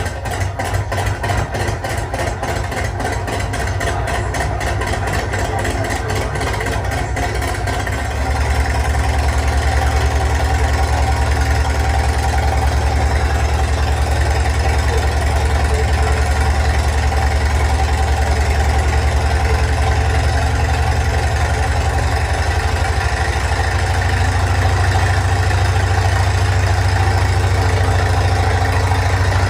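Piston engine of a full-size North American T-28 Trojan aircraft running steadily, with close even firing pulses at first and growing louder about eight seconds in.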